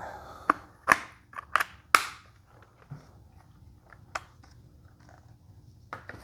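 Plastic vacuum parts and packaging being handled: a series of sharp clicks and knocks, several in quick succession in the first two seconds, then a few scattered ones.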